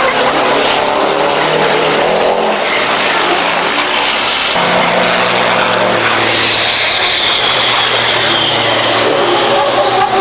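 Diesel race trucks' engines running hard on the circuit, loud and continuous, with the engine pitch shifting as they drive. From about six seconds in, a high whistling tone falls slowly over the engine noise.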